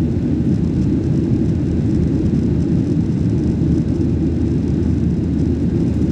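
Steady low roar of a Boeing 737-800's jet engines and airflow heard inside the cabin during the climb after takeoff.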